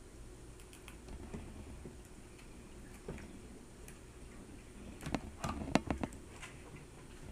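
Faint scattered clicks, then a quick run of sharper clicks and knocks about five seconds in, as ice cubes are worked loose from a plastic ice cube tray.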